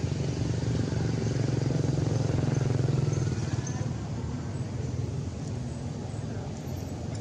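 A motor vehicle's engine running steadily, a low rough hum that is loudest from about one to three seconds in and then eases somewhat.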